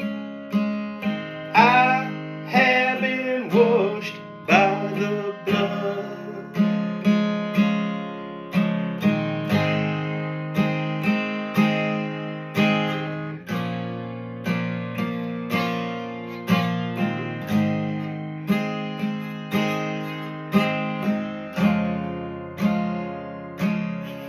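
Acoustic guitar strummed in a steady rhythm, the chord changing every few seconds.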